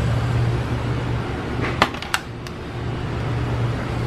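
A steady low hum with a few sharp clicks and clacks from handling the parts of a coin-operated bulk candy machine while it is being emptied and refilled.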